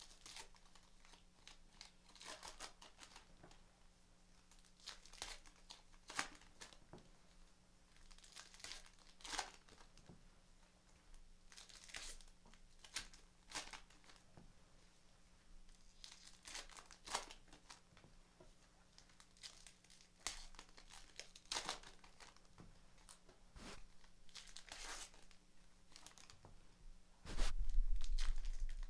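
Baseball trading-card pack wrappers being torn open and crinkled by hand, in irregular short crackles, with cards handled in between. Near the end comes a brief low thump, the loudest sound.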